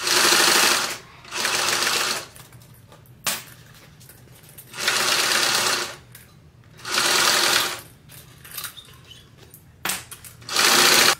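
Yamata sewing machine stitching a seam in five short runs, each about half a second to a second and a half long, stopping between runs.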